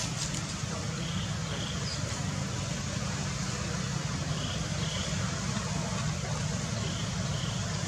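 Steady outdoor background rumble and hiss, like distant traffic or wind, with a faint high two-note chirp repeating about every three seconds.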